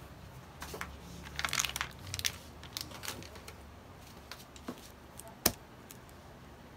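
Scattered rustling and crinkling with light clicks as things are handled, a short burst of rustling a second and a half in, and one sharp click about five and a half seconds in.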